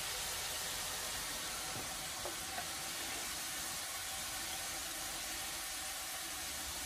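Steady hiss of food sizzling in a pot on a gas stove, with a couple of faint clicks a little over two seconds in.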